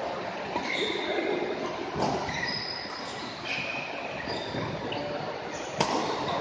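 Badminton rally: rackets striking the shuttlecock in sharp cracks, the loudest near the end, and short high squeaks of court shoes on the floor, echoing in a large hall.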